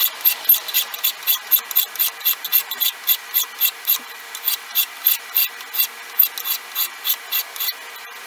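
Half-round file scraping in quick, short strokes, about four a second, across a peened brass pin set in a wooden handle; the strokes stop near the end.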